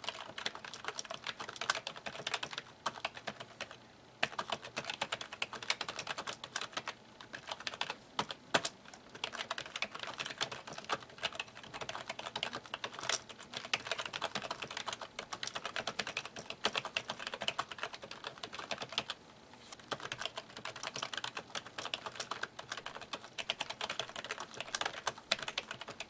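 Continuous touch-typing on a Califone Kidskey USB keyboard with rubber dome key switches: a rapid stream of key clicks, pausing briefly twice.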